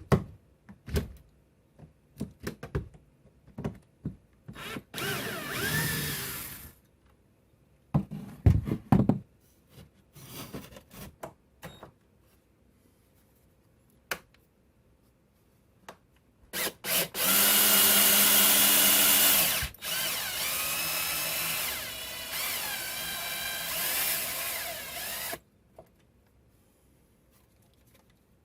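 Power drill driving screws out of wood in runs: a short run about five seconds in and a long run of about eight seconds in the second half, its motor pitch shifting as it goes, with knocks and clatters of handling between.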